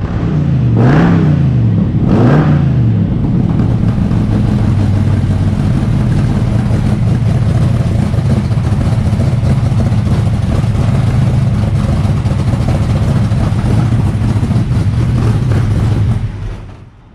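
A freshly built truck engine with open exhaust, no pipes past the clamps, revved twice in quick succession and then left running steadily. It stops near the end.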